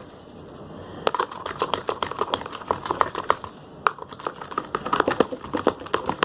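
Quick, irregular clicks and taps, a few per second, from a knife being used to stir homemade slime mixture in a container.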